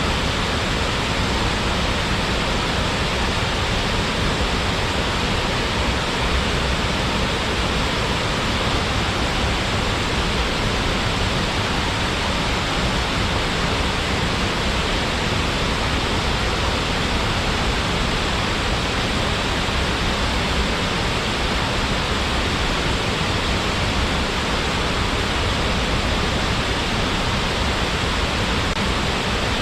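Waterfall: water falling and splashing into its pool in a steady, even rush.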